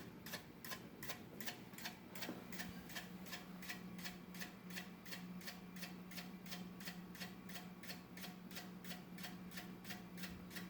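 Progress Lighting Apollo ceiling fan running with a steady hum and an even ticking about three to four times a second. The owner puts the tick down to the motor being a very tight fit in its housing.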